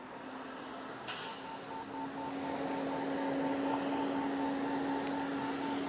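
Honda Dio scooter riding along, its single-cylinder engine giving a steady hum that grows louder from about a second in. Wind hiss over the helmet camera also comes in about a second in.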